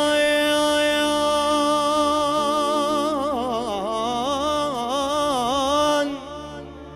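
A man singing a mawwal into a microphone: one long held note, then a run of quick ornamented turns, and the voice breaks off about six seconds in. A steady low instrumental drone sits underneath.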